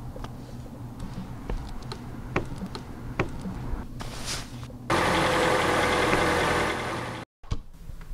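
Polaris Ranger utility vehicle's engine idling with a steady low hum, with scattered clicks and knocks as people climb aboard. About five seconds in, a sudden loud steady rushing noise starts and runs for about two seconds, then cuts off abruptly.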